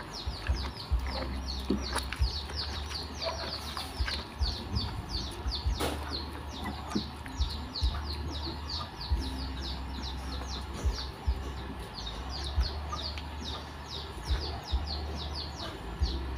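Birds chirping continuously in the background, a fast run of short high notes several times a second, over a low rumble that comes and goes. Faint wet squishing and small clicks as a hand kneads butterfly pea flowers in a bowl of water.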